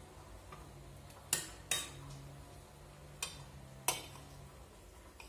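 A metal ladle knocks against the pot and the couscous dish four times, sharp clinks spaced unevenly, as broth is ladled over steamed couscous. A low steady hum runs underneath.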